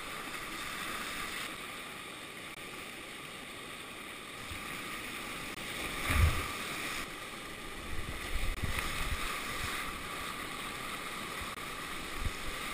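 Whitewater rapids rushing steadily around a kayak. A heavy splash about six seconds in as the kayak plunges into a breaking wave, then more splashes and bumps a couple of seconds later.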